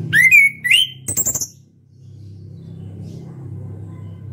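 Chestnut-capped thrush (anis kembang) singing loudly: two clear whistled notes sliding upward, then a short harsh rattling phrase, all within the first second and a half, over a steady low hum.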